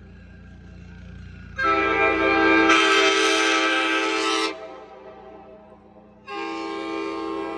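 Nathan K5LA five-chime air horn from Amtrak F40PH #370, blown twice as a chord of steady tones. The first blast lasts about three seconds and the second starts near the end. Each grows louder and brighter about a second in.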